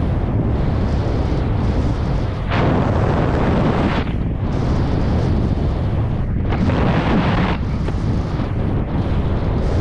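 Wind buffeting the camera microphone during a ski descent, a loud steady rumble, with the skis hissing through fresh snow and swelling several times as they carve.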